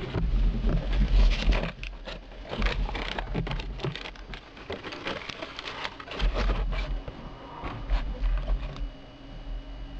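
Cardboard box and clear plastic packaging tray being handled: crackling plastic and sliding cardboard with many irregular clicks, and low thuds against the desk. The handling eases off about nine seconds in.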